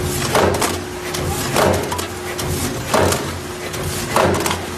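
PM 420MN vertical form-fill-seal bagging machine running its cycle: a sharp noisy stroke about every one and a quarter seconds as it makes each pillow bag, with a steady hum between strokes.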